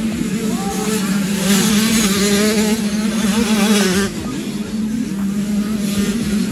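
Motocross bike engines racing, their revs rising and falling constantly, with a brief drop in loudness about four seconds in.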